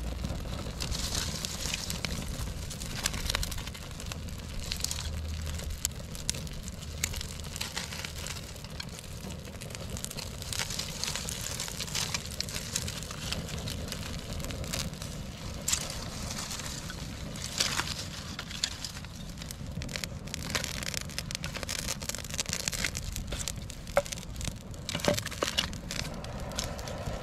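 A small campfire crackling and snapping as dry tinder and twigs catch, with the crinkle and crack of dry sticks and plant matter being handled and laid onto the flames.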